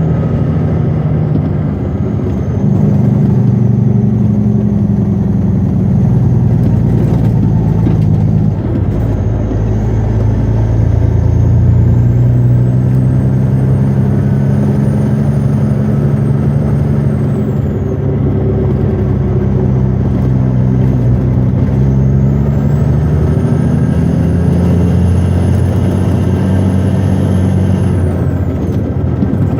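Western Star logging truck's diesel engine running under load, heard from inside the cab. Its note shifts several times, and a thin high whine rises and holds twice.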